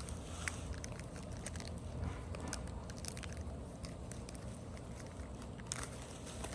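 Small parts and plastic packaging being handled while an air cleaner kit is unpacked: scattered light clicks, crinkles and scrapes over a steady low background hum.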